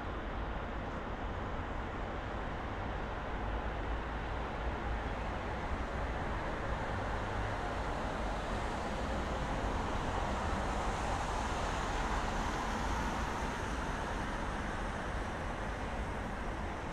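Steady city road traffic noise, with a passing vehicle that rises and fades about halfway through.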